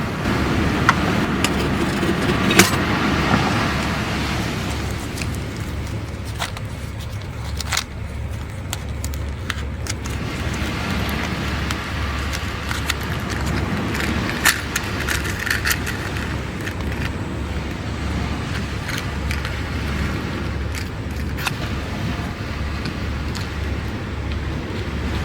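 Wood campfire crackling, with scattered sharp pops, over a steady low rumble.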